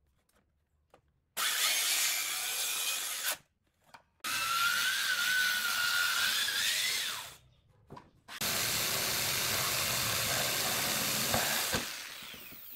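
Power saws cutting pallet wood in three separate bursts after a near-silent first second: a circular saw's blade whines through two short cuts, its pitch rising as the second cut ends, then a longer, even stretch of sawing fades near the end.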